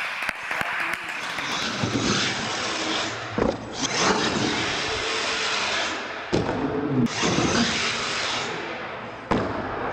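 Solid-axle R/C monster truck running hard, its electric motors and gears whining as it speeds up the ramps, with three sharp thuds as it lands and tumbles.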